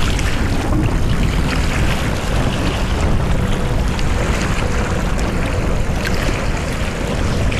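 Wind rumbling on the microphone over small waves washing against shoreline rocks, a steady unbroken noise.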